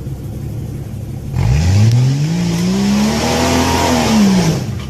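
Off-road 4x4's engine revved hard from a low idle about a second and a half in, its pitch climbing for two seconds and then falling away, under a loud rushing hiss that stops abruptly near the end.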